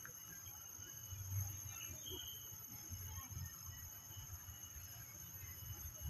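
Outdoor hilltop ambience: a low, gusting wind rumble on the microphone, strongest about a second and a half in, under a steady high-pitched whine and a few faint chirps.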